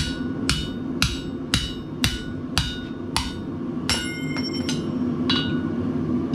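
Blacksmith's hand hammer striking a steel drift in a hole in a bar of hot steel on the anvil to enlarge the hole: sharp metallic ringing blows about two a second, then a quicker run of lighter ringing taps about four seconds in and one last blow a second later. A steady hum from the forge runs underneath.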